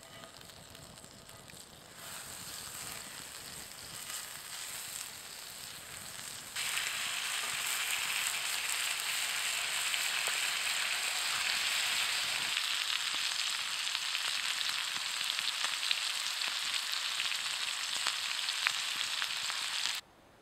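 Butter sizzling in a pan over a campfire, then louder, steady frying of slices of meat in the hot fat from about six and a half seconds in, with faint crackles. The sizzling cuts off abruptly near the end.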